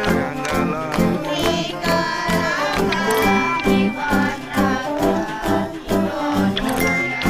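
Background music with a steady beat and a singing voice.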